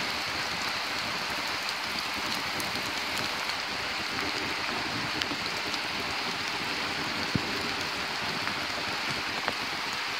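Steady rushing of a flooded creek running high and fast after heavy rain, an even, unbroken hiss of water. A single small click about seven seconds in.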